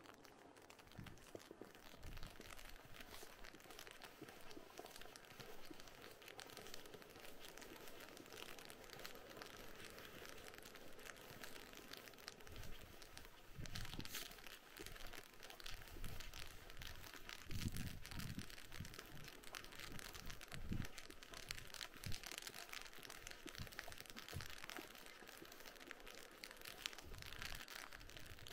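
Footsteps crunching on a snow-covered path, with a constant fine crackle under the thuds of the steps.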